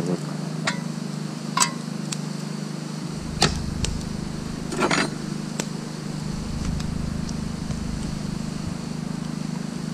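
Portable generator running with a steady low hum. Several short, sharp clicks and knocks come in the first five seconds.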